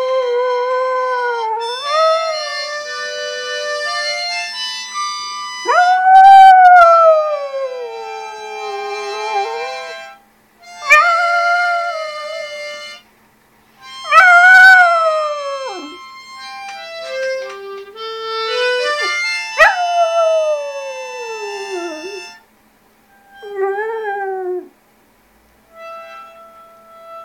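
Shih Tzu howling along to a harmonica: a run of long howls, each sliding down in pitch, over held harmonica notes and chords, with short pauses between phrases.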